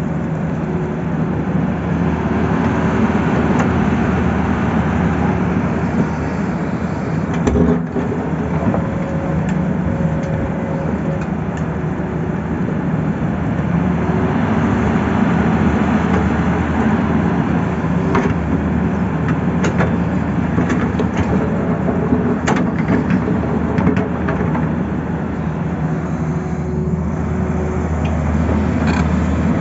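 Tata Hitachi crawler excavator's diesel engine running steadily under digging load as the bucket works soil and rock, with a faint whine that comes and goes and scattered knocks, the sharpest about eight seconds in.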